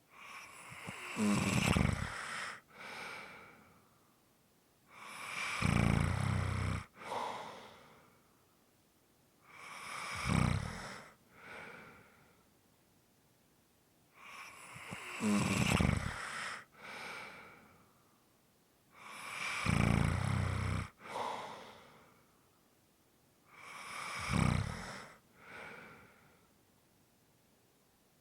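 A sleeping person snoring in a slow, even rhythm: six loud, rumbling snores, about one every five seconds. Each snore is followed by a shorter, softer breath, with quiet in between.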